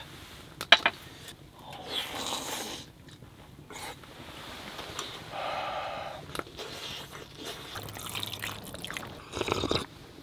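Eating sounds at a camp table: sharp clicks of chopsticks against a metal pot about a second in, then slurping of hot broth and chewing in several separate bursts.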